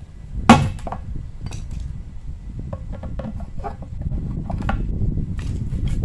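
A hammer striking the handle of a screwdriver to punch drainage holes in a planter: one hard blow about half a second in, then a string of lighter knocks and clicks.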